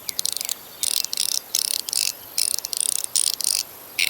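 Chenyu Guardian mechanical fidget toy in amber PEI plastic being worked by hand: quick runs of sharp plastic clicks, in bursts of about half a second, repeating roughly every three-quarters of a second.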